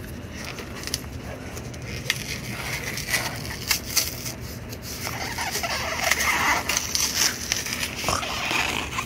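Utility knife cutting through a cardboard shipping box while the cardboard is pulled and torn apart: irregular scraping, crackling and sharp clicks, busier and louder in the second half.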